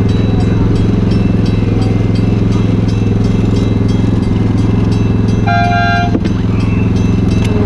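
Ride-on miniature train's engine running steadily as the train moves along the track, with a light click about three times a second from the wheels on the rails. About five and a half seconds in comes a short horn toot.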